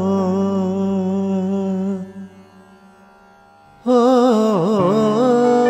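Carnatic music: the singer's long held note over a drone fades away about two seconds in, and after a short hush a melodic line with wavering gamaka ornaments comes back in near four seconds.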